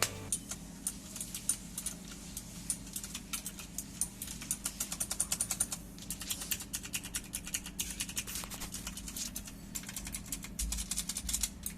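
Rapid typing on the AULA L2098 mechanical keyboard, whose clicky switches give a quick stream of sharp key clicks. The clicks stop for a moment about halfway through, then resume.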